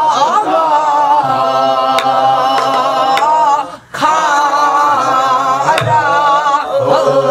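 Namdo folk song (namdo minyo) sung in long, wavering held notes, first by a woman solo and then, about four seconds in, by a small mixed group singing together. A few sharp strokes on a Korean barrel drum (buk) mark the rhythm.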